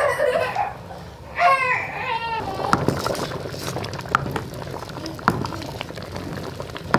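A wooden spoon stirring thick goat-head soup in a large aluminium pot, with a few sharp knocks of the spoon against the pot's side. A high voice speaks twice in the first couple of seconds.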